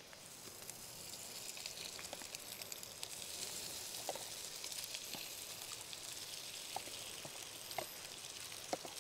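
Seasoned crayfish frying: a steady sizzle with scattered small crackles, growing louder over the first few seconds.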